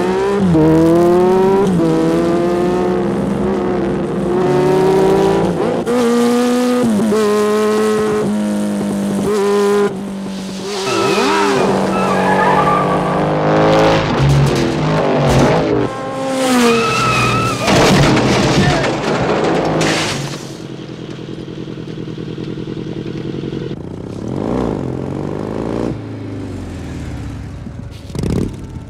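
Racing motorcycle engines at full throttle, revving up and down through the gear changes, with tyre squeals and a crash of tumbling metal drums in the middle. After about twenty seconds the engines drop to a lower, steadier running.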